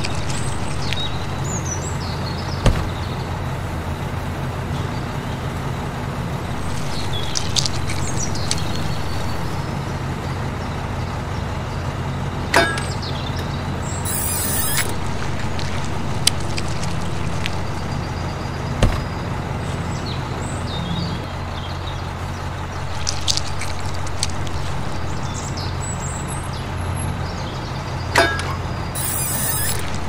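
Small electric motor of a miniature toy concrete mixer truck running steadily, turning the drum as it discharges wet concrete down its chute. A few sharp clicks and short high chirps sound over the hum.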